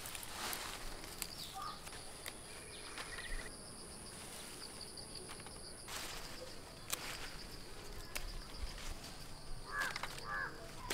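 Bean vines and long grass rustling and snapping in short bursts as green beans are picked by hand, over a steady high insect buzz. A few short bird calls come in, the clearest near the end.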